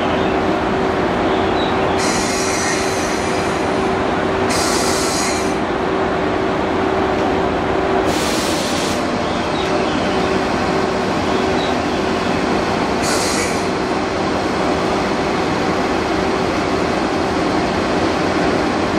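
EF81 electric locomotive standing still with its onboard equipment running, giving a steady hum with one held tone. Four short hisses of air break in, each about a second long.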